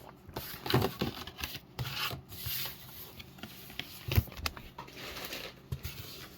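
Trading cards and their packaging being handled: irregular rubbing and rustling with a few short, sharp clicks.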